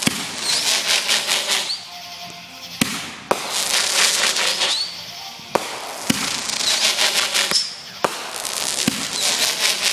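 Consumer aerial fireworks going off shot after shot: a sharp bang every second or two, each followed by a shower of crackling stars, with an occasional short rising whistle.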